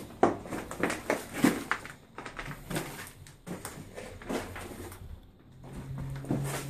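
Footsteps crunching and scuffing over rubble and debris on the floor, an irregular run of crunches and knocks, with a low steady hum coming in near the end.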